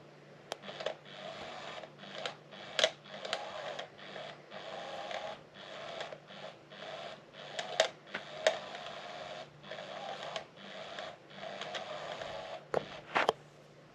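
Small electric motor of a SmartyKat Hot Pursuit cat toy whirring in short spurts that stop and start every second or so, with sharp clicks and knocks in between.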